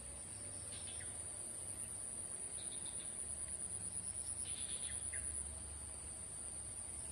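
Insects trilling in one steady high-pitched tone that pulses more strongly for a couple of seconds in the middle, with a few faint short chirps.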